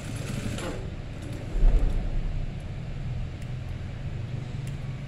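Singer industrial sewing machine's motor humming steadily, with fabric rustling in the first second and a low thump a little under two seconds in.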